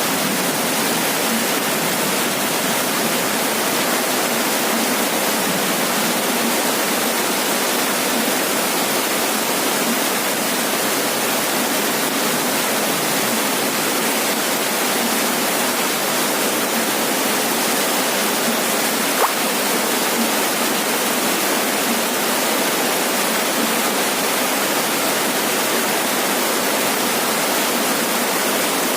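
Heavy rain falling steadily on a roof, a dense even hiss with no let-up. A single brief tick sounds about two-thirds of the way through.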